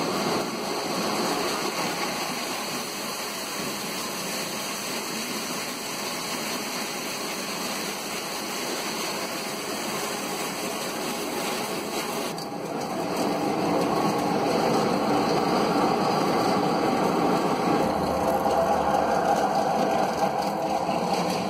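Electric fava bean peeling machine running, a steady mechanical noise that grows louder a little past halfway.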